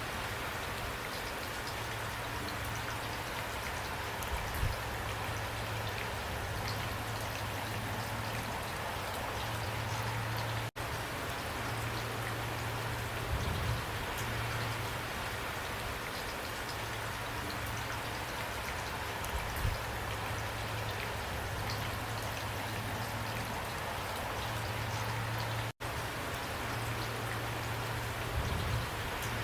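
Steady rain falling, an even hiss of many drops on a surface, with a low hum coming and going beneath it. The sound cuts out for an instant twice, about 11 and 26 seconds in.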